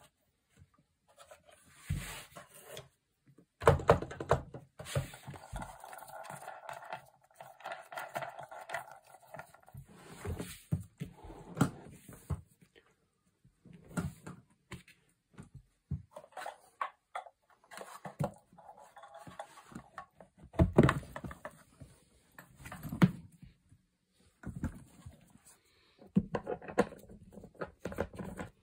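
Handling noise from a homemade suitcase drum: irregular knocks, clicks and rustling as the suitcase and its wooden beater mechanism are moved and turned. A few louder thumps stand out, the loudest about four seconds in and about twenty-one seconds in.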